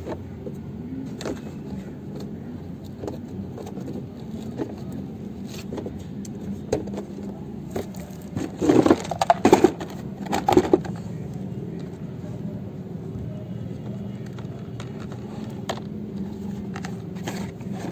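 Hard plastic parts of a kid's ride-on car being handled, with scattered clicks and a cluster of louder knocks and rattles about halfway through, over a steady low hum.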